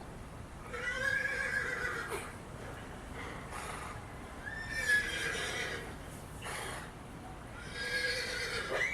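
Horse-whinny ringtone played from a phone, a recorded whinny repeating three times, about every three and a half seconds, each call about a second and a half long with a rising-then-falling pitch.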